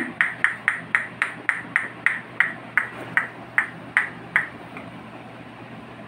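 A person clicking their tongue in an even rhythm, about three clicks a second, to call a pet rose-ringed parakeet; the clicks grow fainter and stop about four and a half seconds in.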